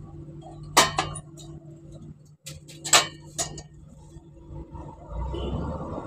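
Metal clinks and knocks from a fogging machine's silencer exhaust pipe being handled and set down on concrete: a handful of sharp strikes in the first three and a half seconds, over a faint steady hum. A low rumbling noise comes in about five seconds in.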